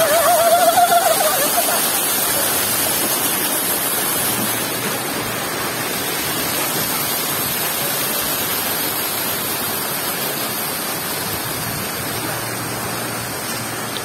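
Water from a splash-pad play structure's spray nozzles and spouts, rushing steadily and splashing into a shallow pool. A child's high, wavering squeal is heard in the first second or two.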